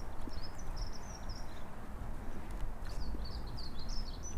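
A small bird chirping, two runs of quick, high twittering notes, one in the first half and one near the end, over a low outdoor rumble.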